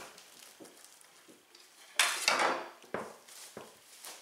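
Plastic cling film pulled from its dispenser box and torn off, with a sharp crinkling rip about halfway through, then three shorter crackles as the sheet is handled.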